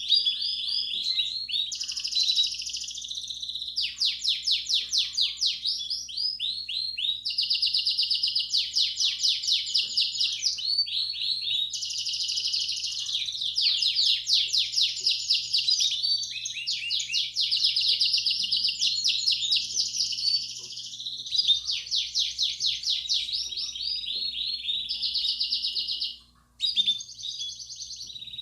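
Canary singing a long unbroken song of rapid trills and rolls, one tour after another, in the bell-like 'campainha' style. The song breaks off for a moment near the end, over a faint steady hum.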